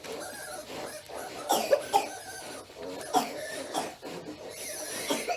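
Pigs giving several short, harsh, cough-like grunts, the loudest about a second and a half in.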